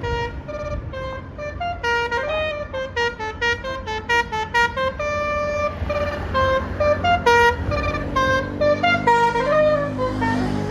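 Bus telolet horn, a Basuri multi-tone air horn, playing a tune of short notes in quick runs with a few held notes and a short pitch slide, over a low rumble of the bus's engine.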